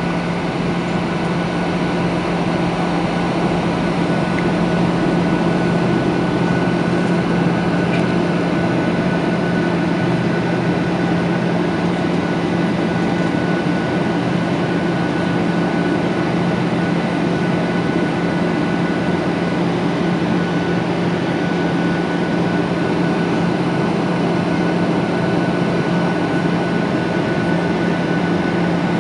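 Steady cabin noise of a Boeing 737-800 airliner in flight, heard from a seat over the wing: the even roar of its CFM56 turbofan engines and the airflow, with a low steady hum under it.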